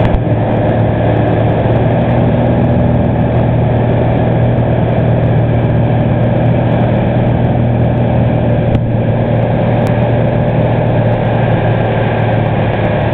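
Single-engine piston light aircraft's engine and propeller running at a steady cruise setting, a constant drone heard from inside the cabin.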